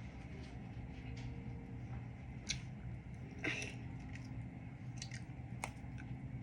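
A few scattered soft clicks and squishy noises close to the microphone, over a steady low hum.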